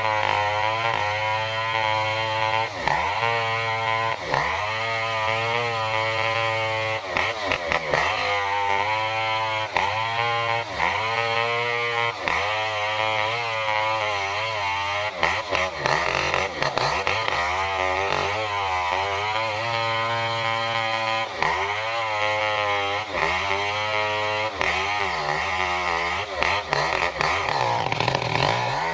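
Stihl 070 two-stroke chainsaw cutting lengthwise through a durian trunk, running at high revs with its pitch dropping and recovering again and again as the chain loads up in the cut.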